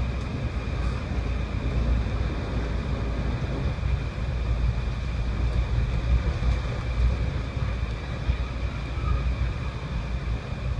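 Passenger train running steadily at speed, heard from inside a coach: a continuous deep rumble of wheels on rail, with no clicks or changes.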